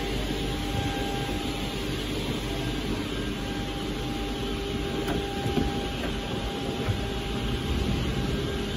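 Steady mechanical background rumble with a faint hum, and a few light knocks from cabinet drawers and doors being handled, the loudest about five and a half seconds in.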